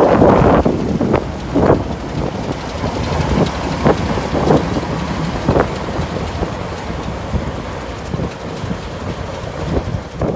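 Small diesel locomotive running as it rolls slowly past, loudest at the start, with short knocks at irregular intervals as it moves along the track.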